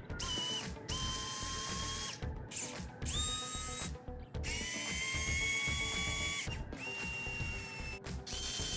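Small electric motor spinning up in repeated bursts of a second or two, its whine climbing quickly and then holding steady before cutting off, about seven times.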